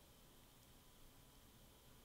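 Near silence: only a faint, steady hiss.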